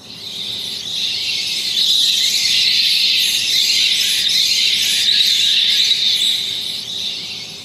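A spooky Halloween sound effect played back by an Arduino with a Sparkfun MP3 player shield, set off by its PIR motion sensor: a high, hissy sound that swells over the first two seconds, holds, and fades away near the end.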